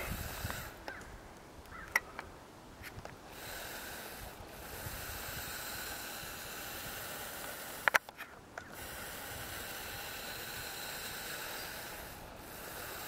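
A person breathing heavily, slow hissing breaths that swell and stop every few seconds, with a sharp click about two seconds in and a quick double click past the middle.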